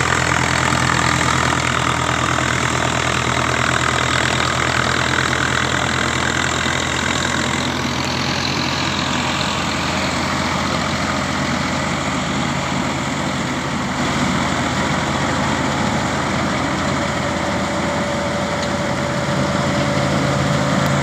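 Tractor engine running steadily while driving a straw reaper that cuts and chops wheat stubble into straw (bhusa), a continuous heavy mechanical din.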